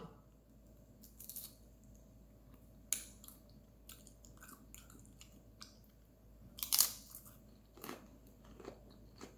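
A person chewing food, with scattered short crunches; the loudest comes about seven seconds in.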